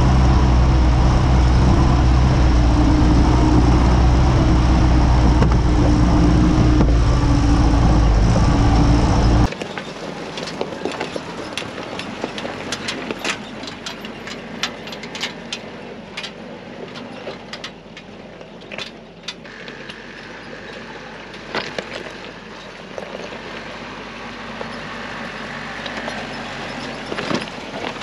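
Willys CJ-2A Jeep driving over gravel, heard from under its chassis: a loud, steady low rumble of engine and drivetrain with tyres on stones. About nine and a half seconds in the sound drops abruptly to the Jeep moving slowly over a rocky trail, quieter and farther off, with scattered sharp clicks and crunches of rocks under its tyres.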